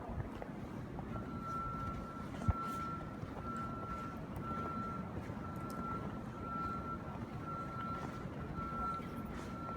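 A reversing vehicle's backup alarm beeping about once a second at one steady pitch, starting about a second in, over a constant low engine and street rumble. A single short thump sounds a couple of seconds in.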